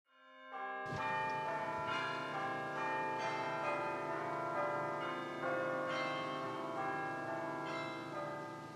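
Church bells pealing: several bells struck one after another at uneven intervals, each ringing on and overlapping the next. The peal swells in about a second in and dies away near the end.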